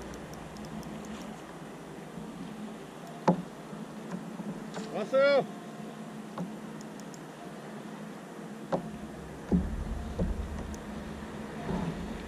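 Handling noise in a fishing kayak while a squid is played on a bent spinning rod: a sharp knock about three seconds in, a short high-pitched squeak about five seconds in, and a few more knocks near the end, over a faint steady hum.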